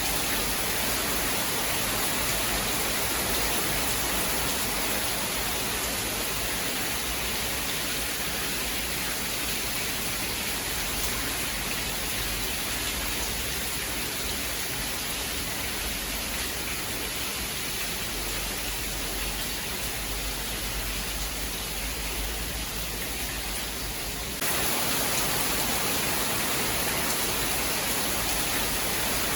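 Steady, dense rain hiss with no distinct thunderclaps. About 24 seconds in, the sound jumps abruptly to a louder, brighter hiss.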